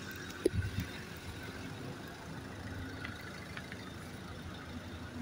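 Diesel engine of a Class 150 Sprinter diesel multiple unit pulling away from the station, a steady low engine note heard at a distance.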